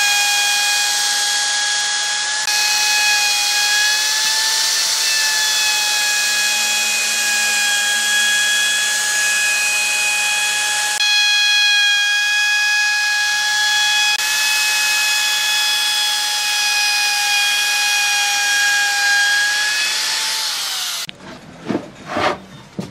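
Electric plunge router running at full speed as it cuts along the edge of a wooden panel, a steady high whine. About 21 seconds in it shuts off with its pitch dropping, followed by a few knocks.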